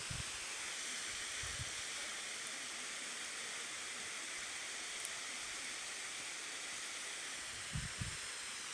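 Steady rush of falling water from a waterfall, an even hiss without changes, with a couple of soft low thumps, one about a second and a half in and two near the end.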